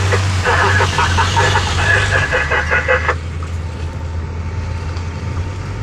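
Heavy diesel dump truck engine running with a steady low drone, with people talking over it until about three seconds in.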